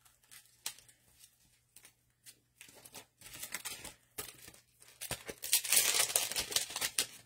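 A crafting stencil being picked out and handled: scattered light taps and rustles at first, then louder crinkling through the last two seconds or so.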